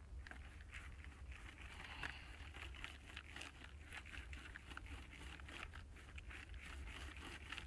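Ash and charcoal from a wood gasifier being shaken in a perforated sieve over a bucket: a faint, continuous gritty rustle of small pieces rattling and scraping, with many small clicks as the fine ash sifts through.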